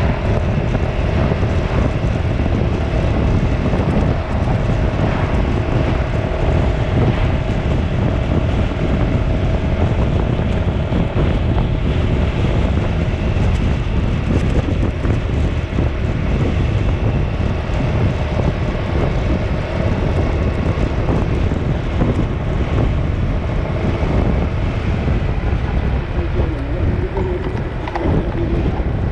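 Steady rushing wind noise on the microphone, with a faint steady hum running under it.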